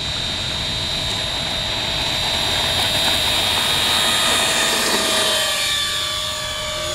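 Four electric ducted fans of a radio-controlled Airbus A380 model on its takeoff run: a steady high whine over a rushing air noise. It grows louder as the model rolls toward the microphone, then eases a little with a slight drop in pitch as it passes and lifts off.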